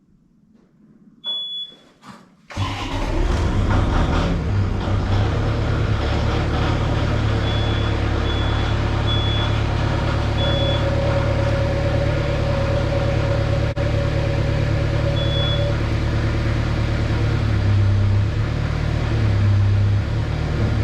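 An engine cold-starting: it cranks in two short bursts, catches about two and a half seconds in, and then runs steadily. A few short high beeps sound during the run.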